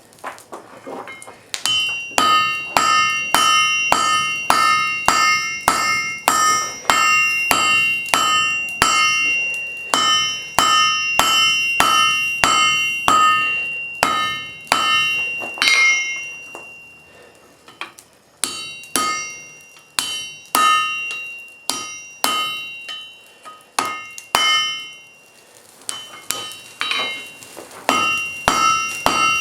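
Blacksmith's hand hammer striking hot wrought iron on an anvil to draw out the bar. The blows come about two a second, each with a bright ringing note, with two short pauses.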